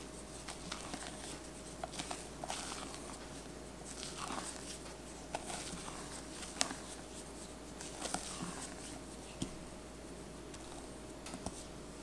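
Silicone spatula folding and scraping wet chocolate batter round a stainless steel bowl: soft wet strokes with an occasional sharp click where the spatula knocks the metal, the loudest about two-thirds of the way through.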